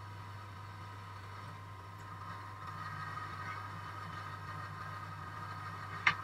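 Drill press motor running steadily, a low hum with a higher whine, a little louder about halfway through. Near the end, a single sharp knock as the aluminium insert plate is set down on the drill press table.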